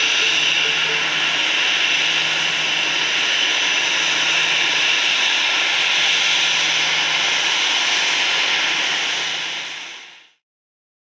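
Jet engines of a taxiing Airbus A319 airliner at low taxi power: a steady hiss with a faint whine, fading out over the last second or two.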